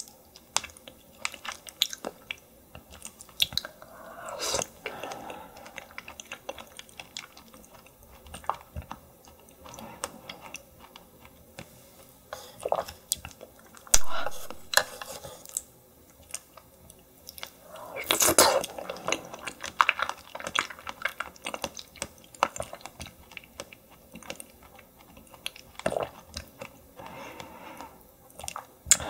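Close-miked chewing of soft raw yellow stingray liver in sesame oil sauce, with many small wet mouth clicks and smacks. A single sharper tap comes about halfway through.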